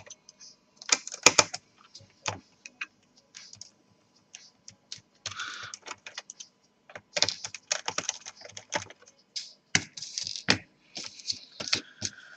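A screwdriver removing small screws from a laptop's plastic bottom case, making irregular clicks and taps with a few short scraping rasps.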